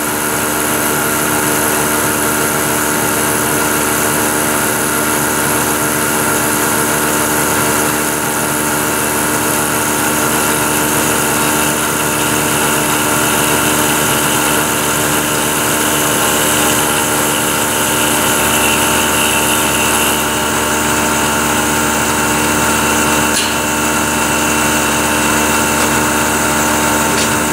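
Vertical milling machine running at high spindle speed while a small 3/32-inch end mill cuts a narrow slot, fed steadily along it on a depth pass: a steady whine of several tones over a high hiss. The hiss eases about two-thirds of the way through, and there is one light tick near the end.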